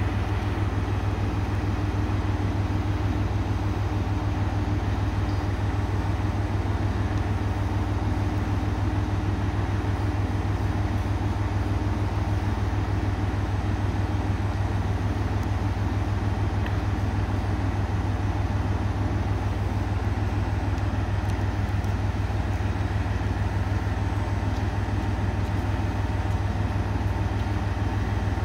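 Diesel railcar idling while standing at the platform: a steady, even low engine drone with a faint steady tone in the first half.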